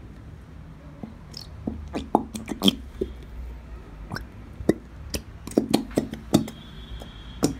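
Elmer's clear glue being squeezed out of its plastic squeeze bottle into a plastic tub: a string of irregular short pops and sputters as the thick glue and air push through the nozzle.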